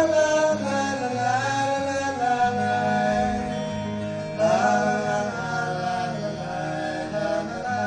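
Music: a folk-rock song's instrumental break, a lead melody line that slides up into its notes over plucked guitar and steady bass.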